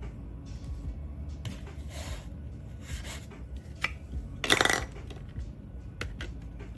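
Hard objects being handled: scattered rubbing and clinking, with a louder clatter about four and a half seconds in, over a low steady hum.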